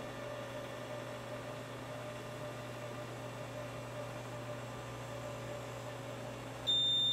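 Steady low electrical hum with a faint hiss. Near the end a loud, high-pitched electronic beep starts.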